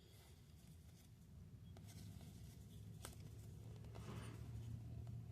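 Faint handling of trading cards: a few soft ticks and a brief rustle as cards are slid and flipped, over a steady low hum.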